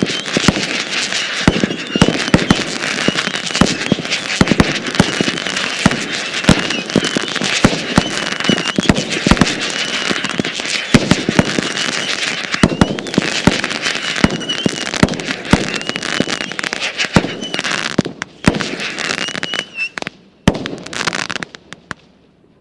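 Nico 'New York' consumer fireworks battery firing continuously: rapid shots and bursts over a dense crackle. Near the end it thins to a few scattered pops and dies away.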